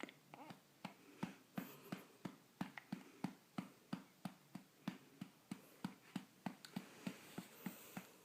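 A hand patting a newborn baby's back in a steady rhythm, about three soft low pats a second, to bring up a burp.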